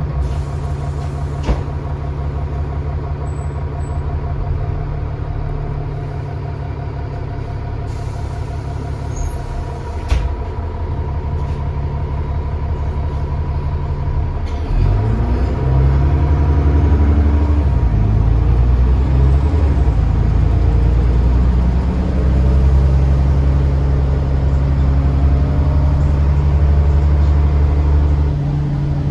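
Bus diesel engine ticking over with a couple of sharp clicks. About halfway through it pulls away and gets louder, the pitch climbing as it accelerates. It eases off near the end.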